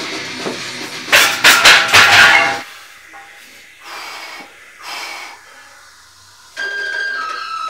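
A squatter under a heavy barbell breathing hard and forcefully: a loud run of sharp breaths about a second in, then two softer breaths. Music comes in near the end.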